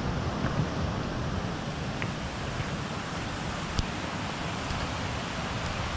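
Wind buffeting the camera's microphone during a walk along a hill path: a steady rushing noise, unsteady in the lows, with a few faint ticks.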